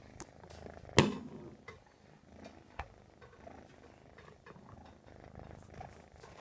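American Shorthair kitten purring steadily, close to the microphone. A sharp knock about a second in and a smaller click near three seconds cut through the purr.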